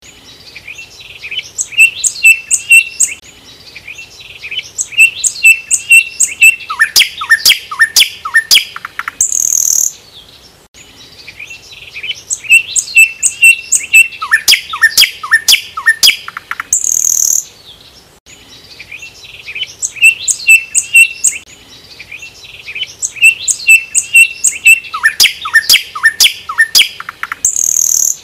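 Nightingale singing in three long phrases with short pauses between them. Each phrase begins with quick repeated high notes, breaks into a fast run of clicks and falling notes, and ends on a sharp, loud high note.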